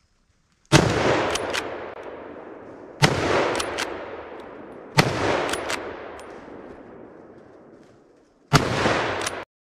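Four rifle shots from a 7x64 Merkel RX Helix straight-pull rifle, each followed by a long echo that fades over about two seconds. Short clicks come just after each shot as the straight-pull bolt is worked. The fourth shot is cut off short.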